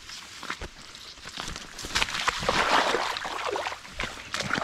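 Shallow water splashing and sloshing as a large ide thrashes in a lift net and a hand grabs at it, loudest about two seconds in.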